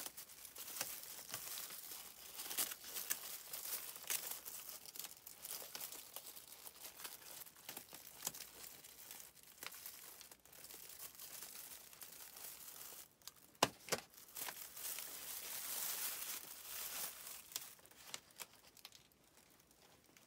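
Thin plastic wrapping around a potted fern being cut with scissors and peeled off, crinkling and tearing in irregular bursts. There are two sharp clicks a little past halfway.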